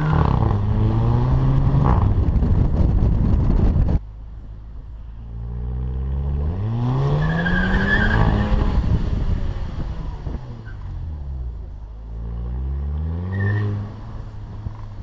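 Volkswagen Fusca TSI turbocharged petrol engine revving hard through DSG gearshifts, with the exhaust crackle ('fart') as it changes up, in several short clips cut together. The engine pitch climbs, drops at the shift and crackles; about four seconds in it cuts off suddenly, then it revs up and falls away again twice.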